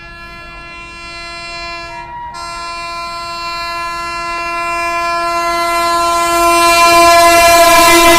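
WAP-7 electric locomotive sounding one long horn blast as it approaches, growing steadily louder, with a brief break about two seconds in. The rumble of the train on the rails builds beneath the horn near the end.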